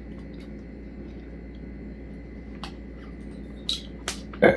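A few short, sharp clicks and crinkles from rope tape being handled and started on a rope, over a low steady hum. The loudest click comes near the end.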